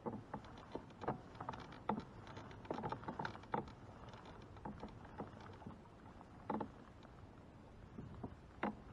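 Irregular light knocks and clicks on and around a fishing kayak, about a dozen spread unevenly, over faint water and outdoor noise.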